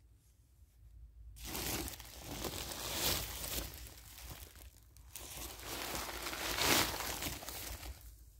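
Dry grass and brush rustling and crackling as a large snake crawls through it. The rustle starts about a second and a half in and swells twice before dying away near the end.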